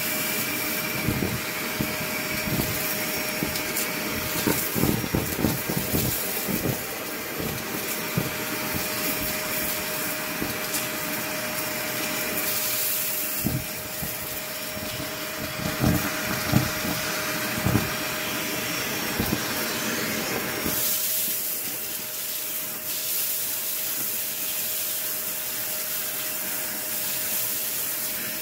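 Vacuum cleaner running steadily with a bristle-brush nozzle, sucking up clumps of grey fluff from carpet, its motor holding a steady whine under the rush of air. Irregular crackles and rattles of debris going up the wand fill the first two-thirds. At about 21 seconds the crackling stops and only a smoother airy hiss remains.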